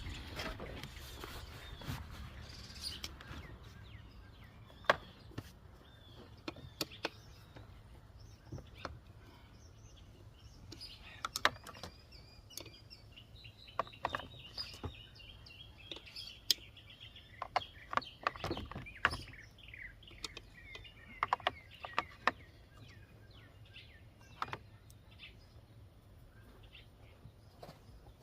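Birds chirping, most of them in the middle stretch, with scattered sharp clicks and knocks from hand work on tractor alternator parts.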